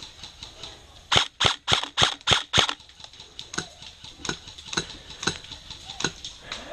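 Airsoft rifle firing a fast string of six sharp shots in about a second and a half, then fainter single shots every half second or so.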